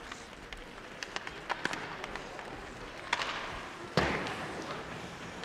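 Ice hockey play in a rink: sharp clacks of sticks on the puck, then a loud bang about four seconds in that echoes around the arena.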